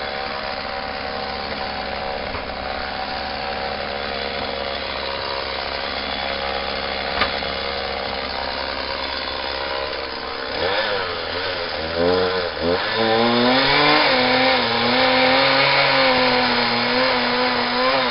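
Homelite 38cc two-stroke chainsaw idling steadily. About ten seconds in it is revved up and held at high speed, its pitch wavering as it cuts into the wood.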